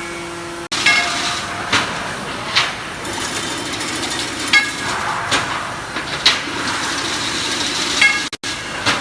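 Automatic chain link fence weaving machine running: steady machine noise with a sharp metallic clank about once a second.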